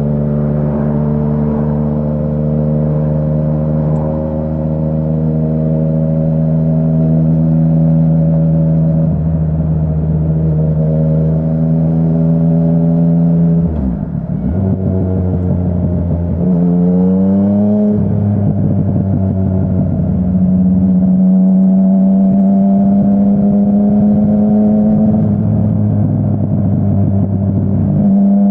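A 2017 Yamaha Tracer 900's 847 cc inline-three, breathing through an aftermarket full-system exhaust, running under way, its pitch creeping up slowly. About halfway through the throttle closes and the revs drop, then it picks up with a quick rise in pitch and settles into a steady pull.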